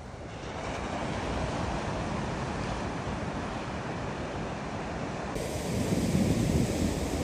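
Steady rush of wind and surf. From about six seconds in, wind buffets the microphone with a heavy low rumble.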